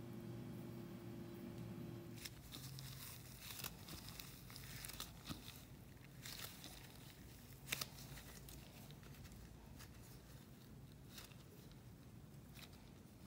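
Bread dough handled on a floured silicone baking mat: faint, irregular sticky tearing and crackling as the soft dough is pulled and pressed, with a few sharper clicks. A faint steady hum stops about two seconds in.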